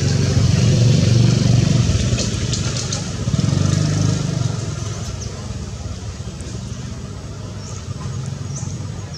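A motor vehicle engine running close by, loudest in the first few seconds and then fading away. A few short, high bird chirps come near the end.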